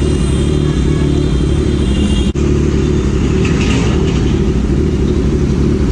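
Kawasaki Z900's inline-four engine idling steadily with a low, even rumble while the bike stands at a traffic signal.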